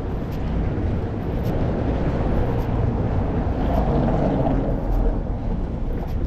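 City street traffic rumble, steady and fairly loud, swelling somewhat in the middle.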